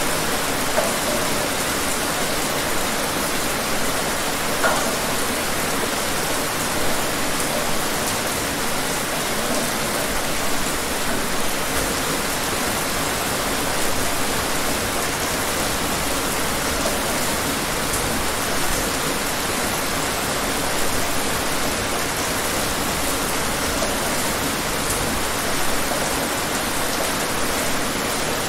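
Steady rain falling: an even hiss of many drops, with small louder spatters now and then.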